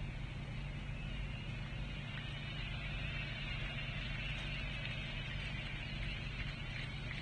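Steady background noise of the cricket ground as heard on an old broadcast: a constant crowd hubbub over a low electrical hum, with a few faint claps or clicks.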